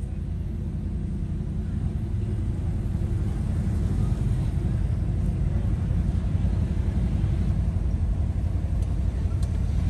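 A car's engine and tyre rumble heard from inside a small car driving slowly. It is a steady low rumble that grows a little louder over the first few seconds.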